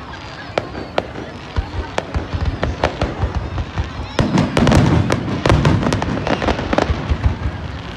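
Fireworks going off: scattered sharp pops at first, then a dense, louder run of rapid crackling bangs from about halfway through.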